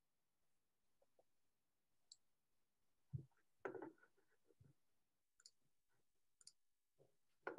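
Near silence: room tone with a few faint, scattered clicks and knocks, most of them about halfway through.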